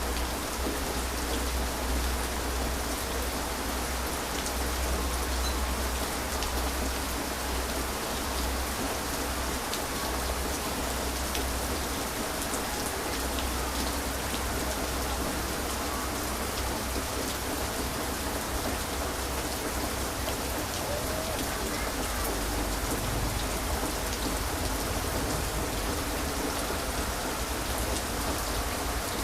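Heavy rain falling steadily, with a constant deep rumble underneath.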